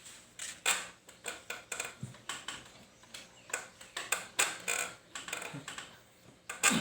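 A series of irregular sharp clicks and taps, a few a second.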